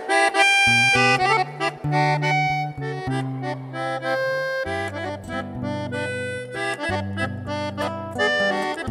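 Button accordion playing a chamamé tune, with held chords over changing bass notes.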